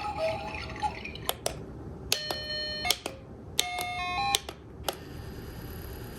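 Several sharp clicks and two short runs of stepped electronic beeping tones, typical of buttons being pressed on the nursery center's battery-powered music and sound module.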